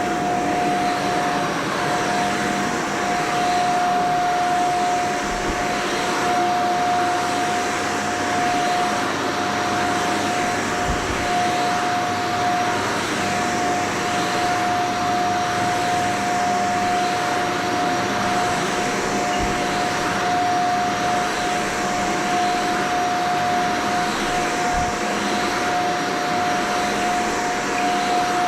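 Vacuum cleaner running steadily with a constant high whine over its rushing airflow, with a few faint low bumps.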